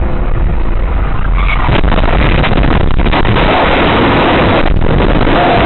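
Loud, harsh crackling rush thick with sharp pops, starting suddenly, from an electrical arc throwing a shower of sparks, heard through a dashcam's overloaded microphone.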